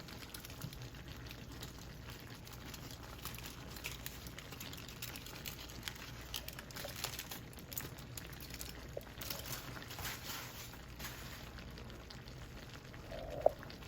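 Chicken drumsticks simmering in a pan, a gentle bubbling with scattered faint crackles, over a low steady hum. A single brief sharp tap near the end.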